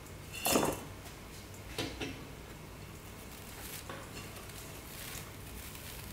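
Stainless steel bowl knocking as a block of tofu is tipped out of it onto cheesecloth: a sharp knock about half a second in and a smaller one a little before two seconds. After that, quiet rustling of the cheesecloth as it is gathered around the tofu over the bowl.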